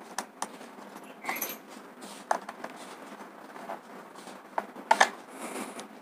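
Scattered light clicks and scrapes of an electrical wire being pushed into a two-way switch's terminal and a screwdriver working the terminal screw.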